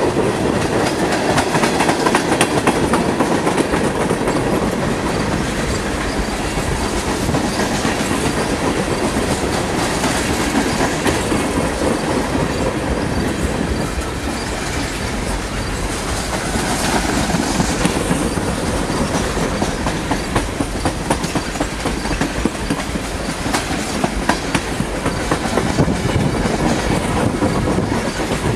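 Freight train of tank cars and refrigerated boxcars rolling past close by: a steady rumble of steel wheels with rapid clicking as the wheels cross rail joints.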